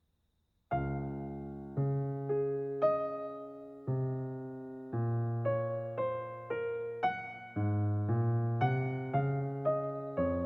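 Calm piano music, starting suddenly about a second in after near silence: a slow melody of struck notes and chords, each one dying away before the next.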